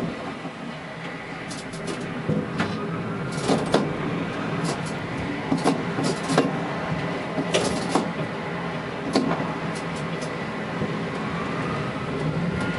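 Tatra T3S tram heard from inside the driver's cab as it rolls along the track: a steady rumble with scattered clicks and knocks, and the traction motor's whine rising near the end as the tram picks up speed.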